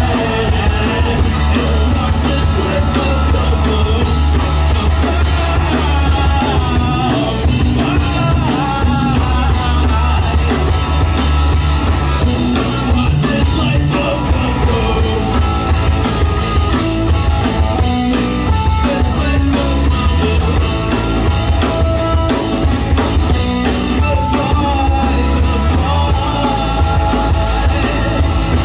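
Live rock band playing loud, a drum kit and heavy bass driving it, with singing at times.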